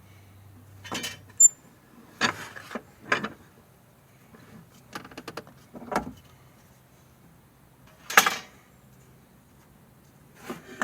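Hand-tool woodworking handling noises: a series of short, separate scrapes, knocks and clicks as wood and tools are moved and set down on the bench. The loudest is a brief scrape about eight seconds in.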